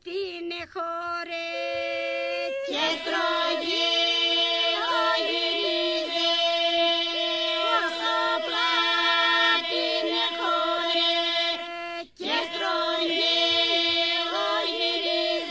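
Epirote polyphonic singing: a group of voices holds a steady drone while a lead voice sings a slow, ornamented melody above it. The sound fills out as more voices come in about three seconds in, and it breaks off briefly for a breath about twelve seconds in before going on.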